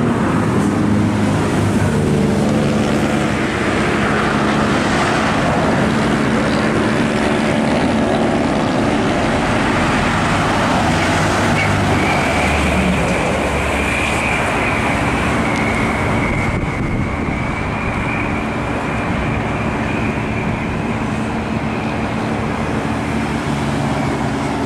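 Road traffic going by close at hand: the steady noise of passing vehicles' engines and tyres, with a high whine joining about halfway through.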